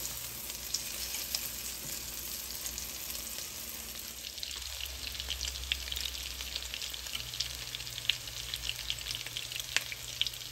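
Broccoli, cheese and egg patties frying in shallow oil in a nonstick skillet: steady sizzling with many small crackles and pops.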